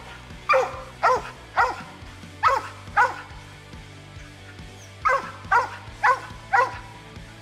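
Mountain cur barking treed, head up at the base of a tree: a run of about five sharp barks roughly half a second apart, a pause of about two seconds, then four more, each bark dropping in pitch. The barking marks the dog as treed on a squirrel he has run up the tree.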